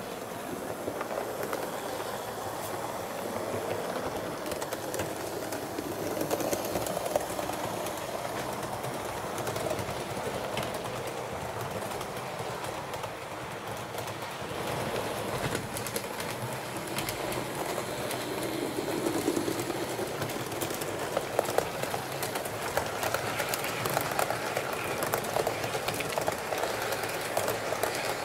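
HO scale model train running along the track: a steady rolling rumble of wheels and motor with many small clicks, a little louder in the second half.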